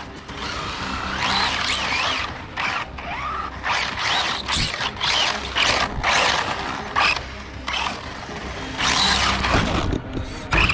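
Arrma Notorious RC car with an SSS 1650 kV brushless motor on a 6S pack, its motor and drivetrain whining in repeated bursts of throttle, the pitch rising and falling as it speeds up and slows. There is a sharp knock near the end.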